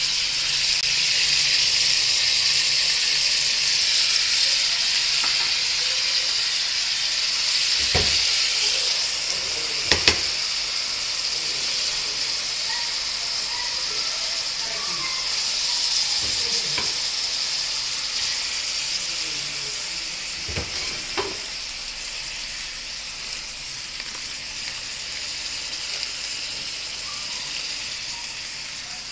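Onions, tomatoes and raw chicken sizzling in hot oil in a kadai, a steady frying hiss that slowly fades. A few sharp knocks sound against the pan, the loudest about eight and ten seconds in.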